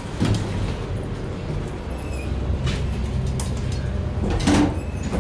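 Dover traction elevator's doors sliding shut over a low steady rumble. There are a few short knocks, and a louder clunk comes about four and a half seconds in.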